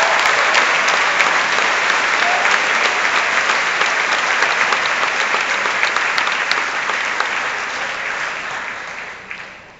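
Large audience applauding in an auditorium, a dense steady clapping that fades away near the end.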